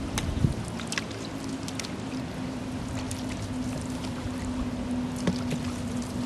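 Steady low motor drone, with scattered sharp clicks and knocks over it.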